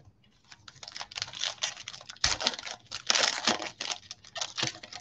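A Mosaic football card pack's foil wrapper crinkling and tearing as it is opened by hand, a dense run of rustles and small crackles, with a soft thump a little past two seconds in.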